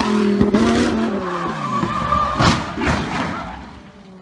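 Car engine running, then dropping in pitch as it comes off the throttle. This is followed by tyre squeal and skidding, with two sharp noisy bursts in the second half before the sound fades.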